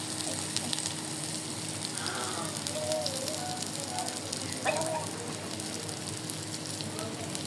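Food frying in a pan: a steady sizzle with fine crackles.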